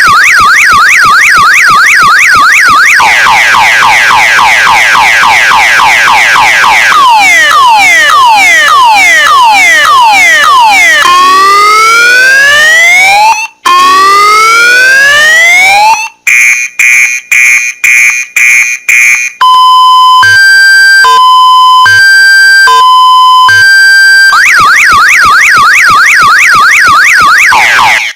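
Electronic car alarm siren, loud, running through its cycle of tones: a fast up-and-down warble, then repeated whooping sweeps, first falling and then rising, then a string of short beeps about two a second, then a two-tone high-low alternation, and back to the warble near the end.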